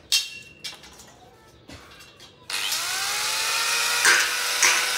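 A few sharp metal clinks, then about halfway through an angle grinder starts, its whine rising as the motor spins up, and runs against steel square tubing with louder bursts near the end as the disc bites.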